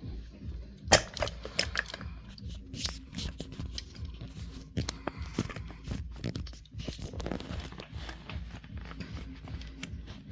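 Irregular clicks, knocks and rattles of hard objects being handled and set down, with one sharp knock about a second in.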